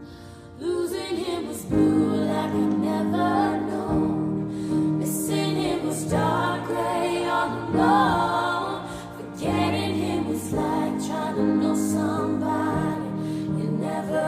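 Background music: a slow song with singing voices over steady, held chords.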